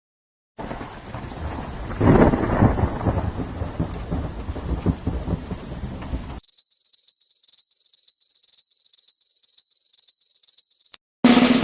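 Thunderstorm sound effect: rain with a loud thunderclap about two seconds in that rumbles on, then cuts off. A high-pitched beeping follows, about three beeps a second for several seconds, and a drum roll starts just before the end.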